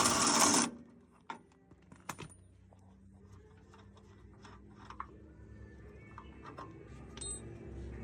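A short hiss, then a few sharp clicks and faint scattered clinks of a socket wrench and tools on the suspension's metal parts.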